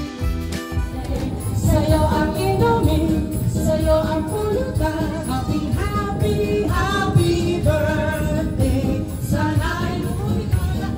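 Background music for about the first second, then a woman singing into a microphone over backing music, amplified through a sound system.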